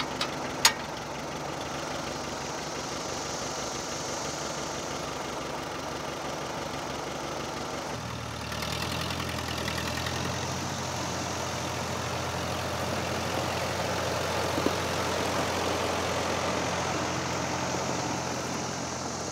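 Antique farm tractor engine idling steadily, with one sharp metallic clank under a second in. About 8 seconds in the engine note grows deeper and a little louder.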